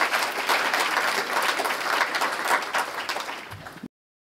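Audience applauding, tapering off and then cutting off suddenly near the end.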